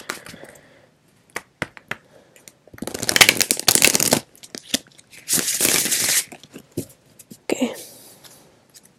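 A deck of tarot cards being shuffled by hand: two long runs of cards riffling through the fingers, about three seconds in and again a couple of seconds later, with scattered taps and flicks of cards around them.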